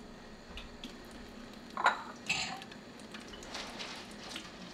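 Faint clinks and knocks of a spoon and dishes at a kitchen sink while a measuring spoon is filled, with two louder clatters about two seconds in.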